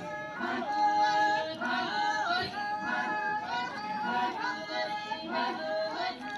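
A group of women singing a folk song together, with long held notes that slide between pitches.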